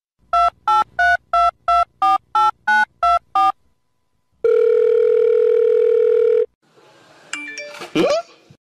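Telephone keypad beeps: about ten quick tones of varying pitch in a row, then a steady tone of about two seconds, like a line ringing. A brief burst of short sounds follows near the end.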